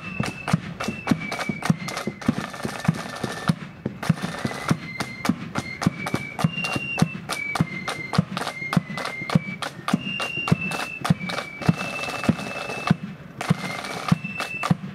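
Marching flute band playing a tune: high flutes carry the melody over snare and bass drums beating a steady marching rhythm. The flutes drop out briefly twice while the drums keep going.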